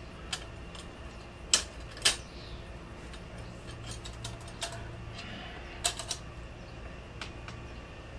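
Scattered small metallic clicks and clinks of screws and a metal license plate bracket being handled as the bracket is unfastened from a motorcycle's tail, with sharper clicks about a second and a half and two seconds in, and a close pair about six seconds in.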